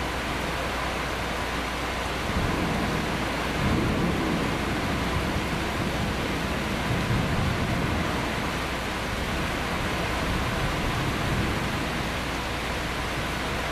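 Steady rain with low thunder rumbling in several swells, the first about two seconds in.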